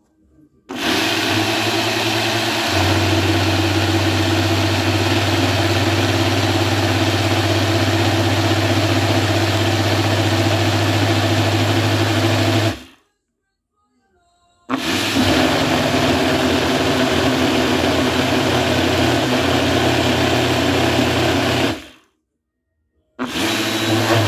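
Ninja countertop blender blending a nut, oat and milk drink mixture in three runs: about twelve seconds, a pause of about two seconds, about seven seconds, then a short run near the end. Each run is a steady motor hum and whir that stops abruptly.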